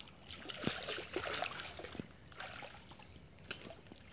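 Faint splashing and sloshing of shallow muddy water as a person moves through it, in small irregular splashes.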